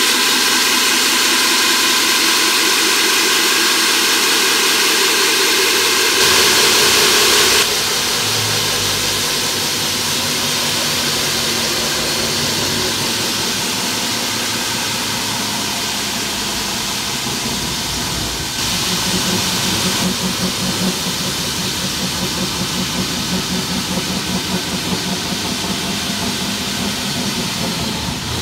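Hilti diamond core drill on its stand, water-fed, running steadily as it bores through a masonry wall. The sound shifts abruptly about six and eight seconds in and again a little past halfway.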